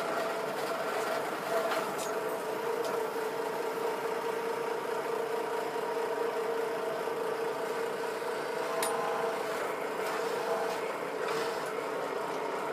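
A drill press motor runs with a steady hum while a small bit drills a pilot hole in a metal piece clamped in its vise.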